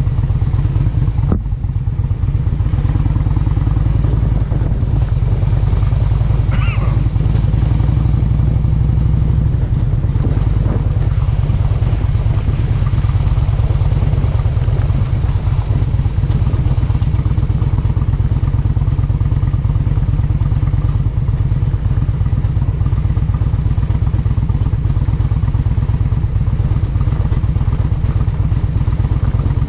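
A motor vehicle's engine running steadily under way, with a loud, even low rumble.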